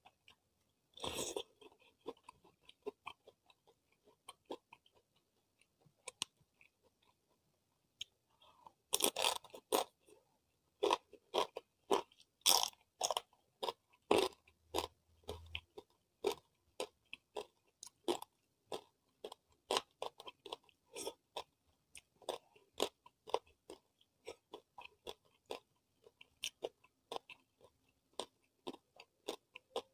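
Close-miked eating sounds: a person chewing and crunching food. Sparse, soft mouth clicks give way to dense, irregular crunchy bites from about nine seconds in.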